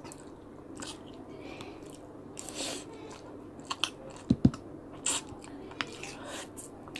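A person chewing a mouthful of rice and sinigang close to the microphone: soft wet mouth clicks and chewing noises, with a few short knocks a little past the middle.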